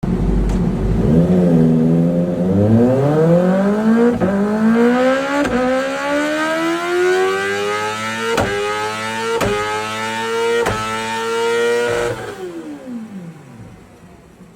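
Kawasaki ZX6R inline-four engine accelerating, its pitch climbing steadily for about ten seconds with a few sharp cracks along the way, then falling away and fading near the end.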